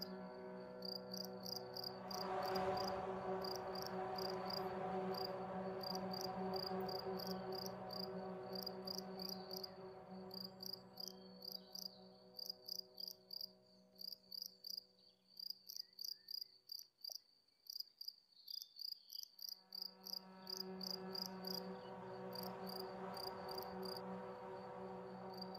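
Crickets chirping in a steady, even rhythm over a soft sustained music drone; the drone fades away about halfway through, leaving the crickets alone, and swells back in a few seconds later.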